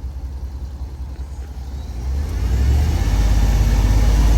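Vehicle engine running with a deep low rumble, revved up about two seconds in and held at a higher speed to charge a flat battery.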